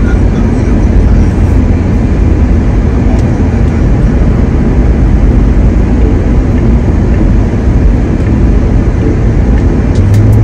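Steady, loud rumble of a car on the move, with road and wind noise heavy in the low end, cutting off suddenly at the end.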